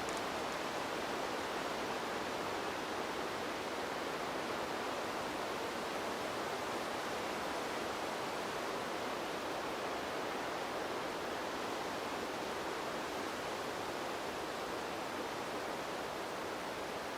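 Wind sound effect: a steady, even rushing noise with no gusts or breaks.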